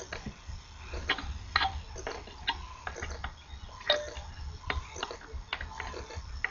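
Small irregular clicks and taps, roughly two a second, as wire component leads are pushed through a printed circuit board and the board is handled, over a steady low hum.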